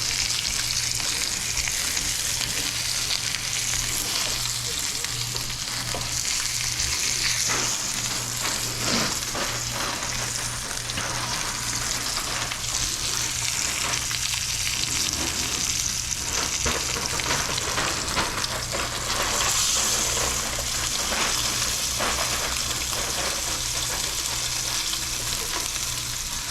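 A tomahawk roast sizzling and crackling steadily as it sears in a very hot oiled pan, with its fat rendering into the pan.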